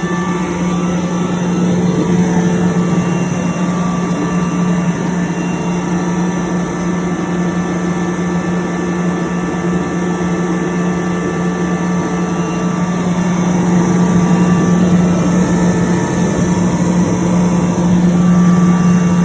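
10 HP Sullivan Palatek rotary screw air compressor running steadily: a loud, even mechanical drone with a strong constant low hum.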